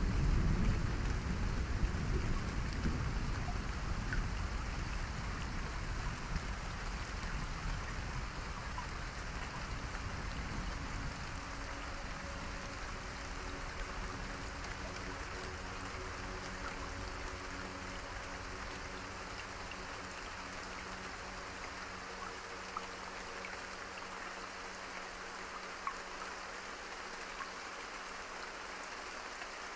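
Steady rain-like hiss, with a low rumble that fades away over the first few seconds; faint steady tones come in about halfway.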